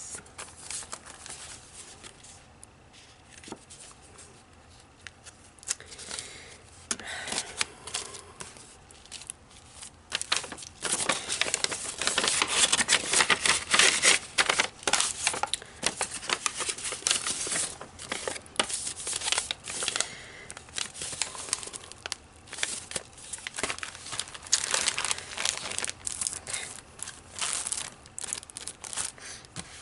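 Paper and cellophane packaging crinkling and rustling as craft supplies are handled. It is sparse at first and becomes busy from about a third of the way in, loudest a little before the middle.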